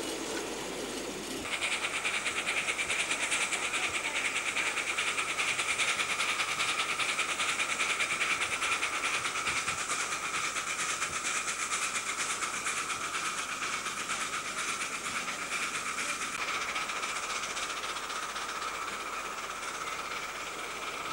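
Miniature ride-on railway locomotive hauling loaded passenger cars along the track, running steadily with a fast, even beat over a hiss. It starts suddenly about a second and a half in and eases off a little toward the end.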